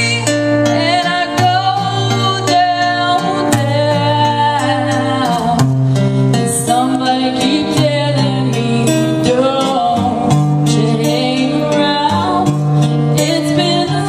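Live music from a guitar-and-vocal duo: guitar accompaniment under held bass notes, with a singing voice carrying a wavering melody.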